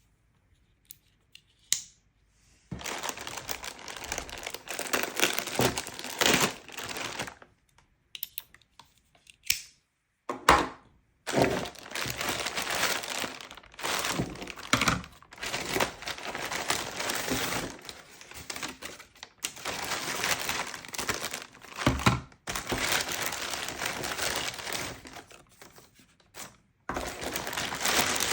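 Crinkling and rustling of packaging and gear being handled, in long stretches broken by short pauses, with a few sharp knocks.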